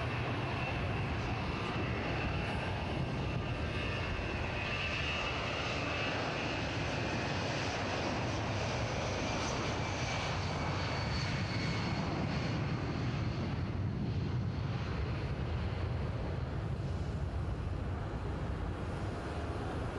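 Jet engines of a twin-engine airliner running steadily on the runway, with a high whine over roughly the first half, as the aircraft heads into its takeoff.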